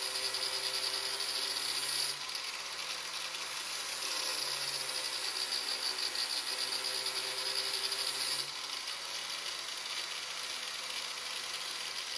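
Electric angle grinder held upright in a blade-sharpening jig, running steadily while a steel lawnmower blade is drawn across its disc. The grinding is louder for the first two seconds and again from about three and a half to eight and a half seconds. Between these passes and at the end, the motor runs free with no load.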